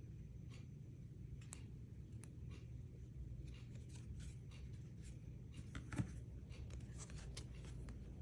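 Faint handling of trading cards: light clicks and rubbing as cards slide off the stack, with one sharper click about six seconds in.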